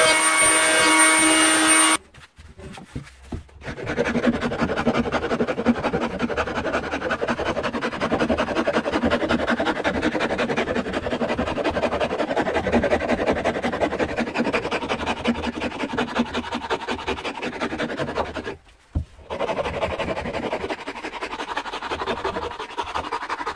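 An electric hand planer runs with a steady motor whine for about two seconds, then cuts off. From about four seconds in, a hand rasp scrapes continuously along an oak handle, with a brief pause about three-quarters of the way through.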